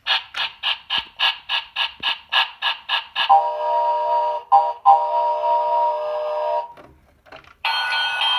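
Electronic sound effects from a Thomas & Friends Sodor Mining Co. toy playset's sound chip: a run of about a dozen even pulses, about three a second, then a steady buzzing tone lasting about three seconds with two brief breaks, cutting off near the end.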